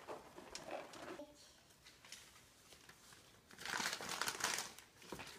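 Wrapping paper crinkling and rustling as a toddler handles a freshly unwrapped gift box, loudest for over a second in the second half.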